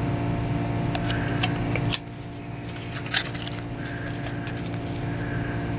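Baseball trading cards being handled and flipped through: a few light clicks and soft slides of card against card, over a steady electrical or fan hum that drops a little about two seconds in.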